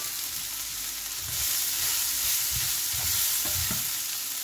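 Chopped vegetables sizzling in hot oil in a frying pan while a wooden spatula stirs in coconut flakes. The sizzle grows louder about a second in, with a few soft scrapes and knocks of the spatula against the pan.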